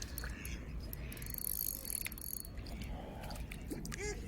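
Spinning reel wound in with a high whirr over wind rumble on the microphone; near the end, geese start honking several times.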